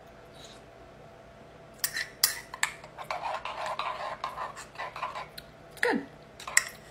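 Metal spoon clinking and scraping against the inside of a ceramic mug as thick oatmeal is stirred and scooped. It starts about two seconds in as a run of sharp clinks with scraping between them.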